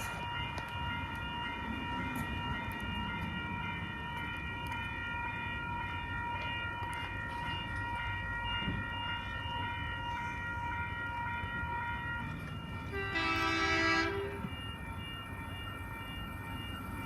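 An 8-car OSCAR (H set) electric train running into the station, with rumbling and a steady high whine. Near the end it sounds a horn blast of about a second and a half.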